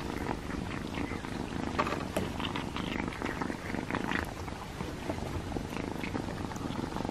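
Cat purring close to the microphone, with small scattered clicks of cats chewing and lapping chicken from a dish.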